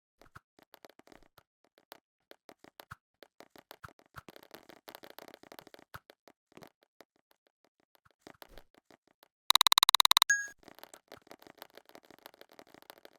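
Electronic sound effects: sparse, irregular crackling clicks, with a loud harsh buzz lasting under a second about nine and a half seconds in.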